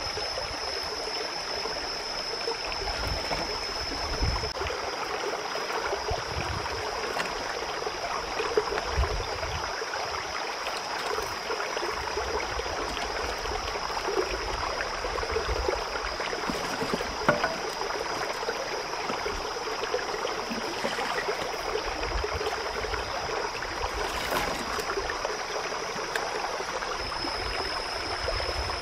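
A rocky creek running steadily, with a continuous high tone above the rush of the water. A few faint light knocks come as sticks are laid onto the fire.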